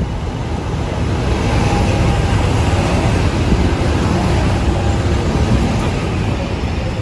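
A train running through the station: a loud rumble that swells about a second in, holds, and eases off a little near the end.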